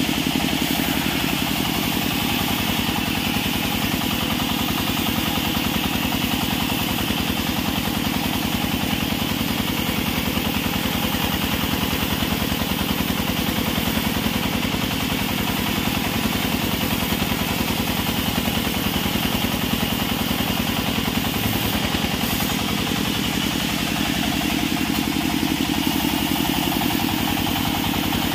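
A band sawmill running steadily as a long squared timber is fed through its vertical blade to rip a board. It makes a continuous, even machine drone with a fast, regular pulse and no pauses.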